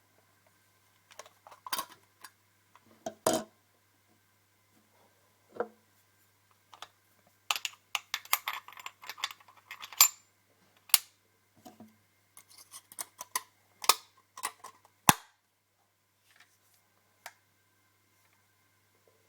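Irregular metallic clicks, knocks and rattles of a Walther CP88 CO2 pellet pistol being handled, with a cluster of quick clicks in the middle and one sharper snap near the end.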